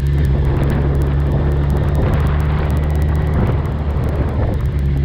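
Sport motorcycle engine running at a steady speed while riding, heard from the rider's seat, with road and wind noise over it that grows in the middle and eases near the end.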